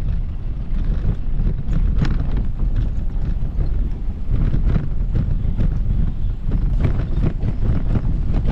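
Footsteps of a walker on a paved path, about two steps a second, under heavy wind rumble on the microphone.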